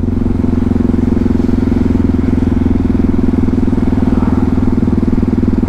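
Yamaha MT-03 660's single-cylinder engine running at a steady, unchanging speed, its firing pulses heard as an even, rapid pulsing.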